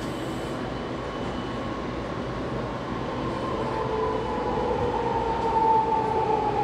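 SkyTrain metro train standing at an underground station platform with its doors open: a steady rumble of running train equipment and platform ambience, with a whine that grows louder over the second half and drifts slightly down in pitch.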